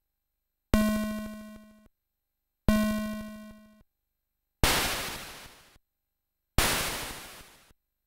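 AY sound chip test output: two buzzy square-wave beeps about two seconds apart, each lasting about a second and dying away, then two bursts of white-noise hiss in the same pattern, the chip's tone and noise generators sounded one channel at a time.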